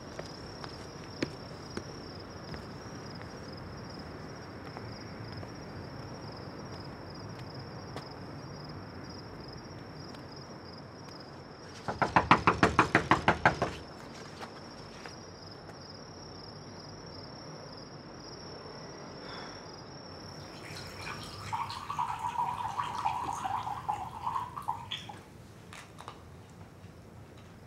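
An insect's steady high trill over a quiet night-time background. About twelve seconds in comes a fast run of about a dozen knocks on a wooden door, lasting under two seconds, and later a softer patch of clinking.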